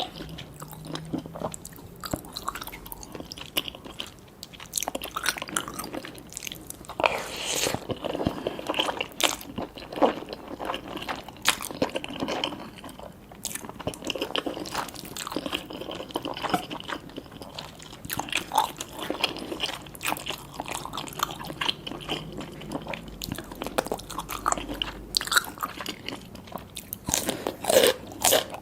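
Close-miked mouth sounds of someone eating spicy cheese instant noodles with tobiko (flying-fish roe): irregular chewing and biting, with many short wet clicks and crunches.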